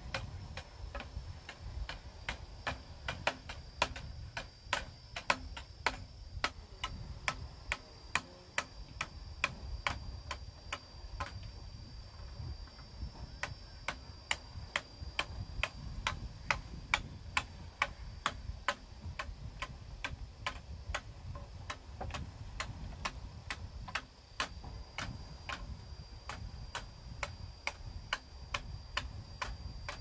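Irregular sharp taps and knocks, about two or three a second, from work on a split-bamboo floor and bamboo frame, over a faint steady high whine.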